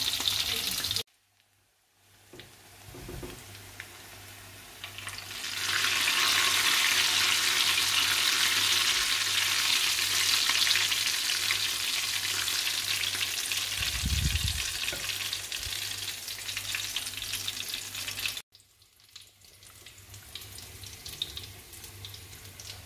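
Sliced garlic, green chili, dried red chilies and cumin seeds sizzling in hot oil in a frying pan as a tadka is fried, stirred with a spoon. The sizzle drops away abruptly about a second in, swells back to full strength, and cuts down again near the end.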